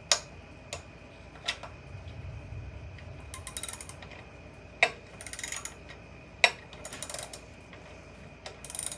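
Hand socket ratchet clicking in four short bursts of rapid clicks as it swings back on a bolt, with a few single sharp metal clinks between them.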